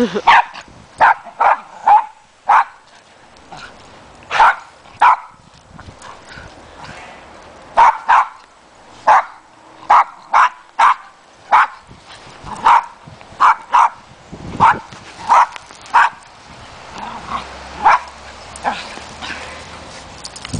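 A dog barking repeatedly in short, sharp barks, often two or three close together with gaps of a second or more between runs.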